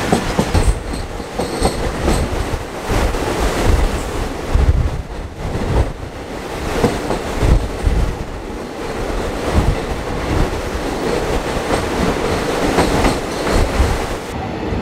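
Passenger express train running at speed, its wheels clattering and rumbling over the rails with irregular clacks and knocks, as the train crosses the Farakka Barrage bridge.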